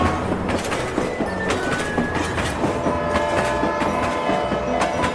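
Train running along the track, its wheels clacking over the rail joints, with long steady tones sounding over it.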